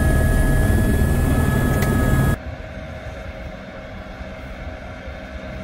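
Airbus single-engine helicopter's turbine and rotor running loud, heard inside the cabin, with a steady high whine over the rotor noise. About two seconds in it cuts off abruptly to a much quieter, steady low rumble.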